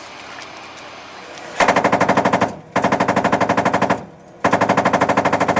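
Machine gun firing three bursts of rapid, evenly spaced shots, each about a second long, with short pauses between them; the last burst is cut off by the end.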